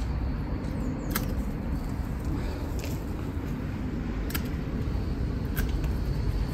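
Pruning shears snipping through rose stems: three short, sharp clicks, about a second in, at about four seconds and near the end, over a steady low background rumble.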